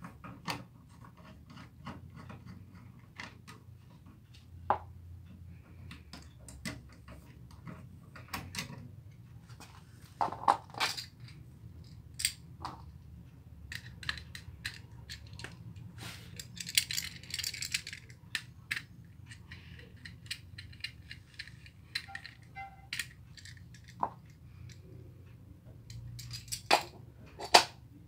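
A screwdriver and the metal parts of an electrical wall outlet clicking, tapping and clinking as the wire terminals are unscrewed and the wires worked loose, with a brief stretch of scraping partway through. A faint steady low hum runs underneath.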